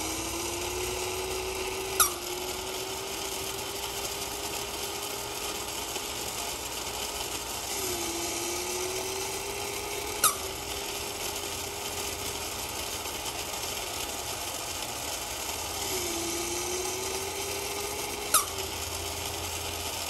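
Small battery-powered electric motor and gear train of a 1950s Linemar Sneezing Bear toy whining steadily, its pitch sagging briefly about every eight seconds as the mechanism works through each sneezing cycle. A sharp click sounds once per cycle, three times in all.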